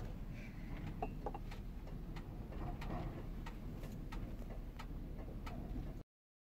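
Faint, irregular clicks and light taps from a coffee press and mugs being handled on a table, over a low steady rumble. The sound cuts off suddenly near the end.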